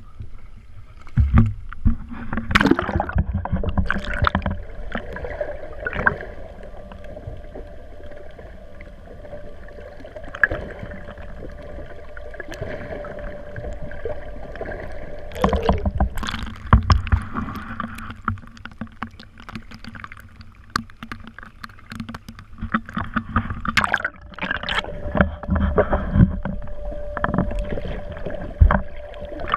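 Sounds aboard a small fishing boat on the water: a steady hum with scattered knocks and thumps throughout.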